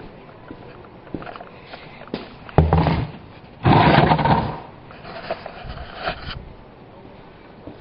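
Two loud scraping rushes about a second apart, the second one longer, with light knocks and clatter around them: oil-change gear being shifted around under the van.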